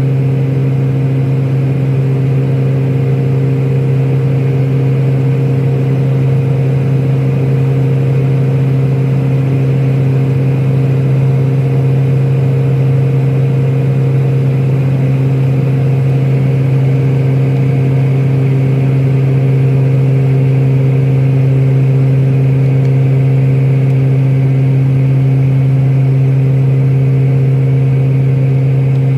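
Steady cabin drone of a turboprop airliner in flight: a strong low propeller hum with a few fainter higher tones over a rush of air, heard inside the cabin beside the engine.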